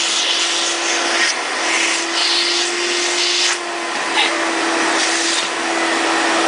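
Vacuum cleaner running steadily: a constant hum under a loud rushing hiss whose upper part brightens and dims every second or so.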